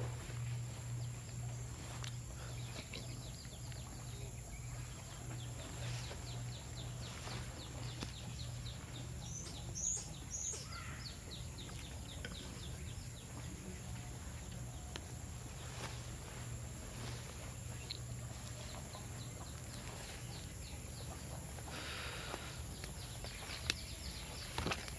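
Outdoor ambience: a low steady hum under faint, rapid bird chirping, with a short cluster of higher calls about ten seconds in and a few scattered clicks.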